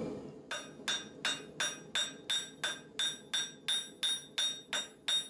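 Hand hammer striking red-hot steel rebar on an anvil in a steady rhythm of about three blows a second, each blow with a bright metallic ring. The end of the bar is being flattened.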